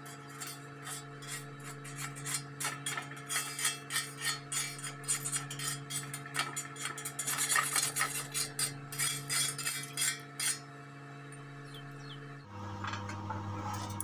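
Rapid metallic clinks and scrapes as slag is knocked off a fresh stick-weld bead on thin steel sheet. They stop about three seconds before the end, leaving a steady low background tone.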